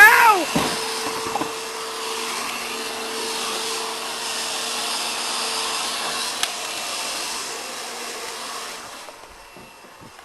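Dirt Devil Featherlight upright vacuum cleaner running with a steady motor whine, dying away near the end. A short falling cry sounds at the very start.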